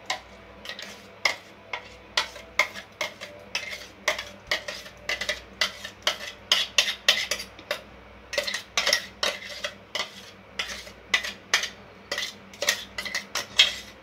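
Steel spoon scraping and knocking against a stainless-steel mixer jar and bowl while scooping out thick blended carrot purée: a run of quick, irregular metal clinks and scrapes, several a second.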